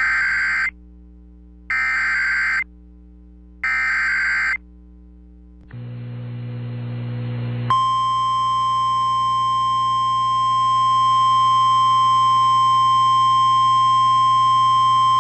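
Emergency Alert System header: three bursts of warbling digital data tones, each about a second long and a second apart. After a low hum, the steady single-pitch 1050 Hz National Weather Service attention tone starts about eight seconds in and holds.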